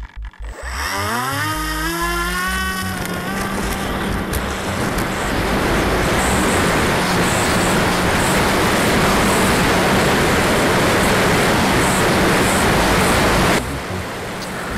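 Heard from a camera on board, an RC seaplane's motor and propeller spin up in a rising whine over about three seconds. They then run at a steady high throttle with a loud rush of air over the model in flight, and the sound drops back shortly before the end.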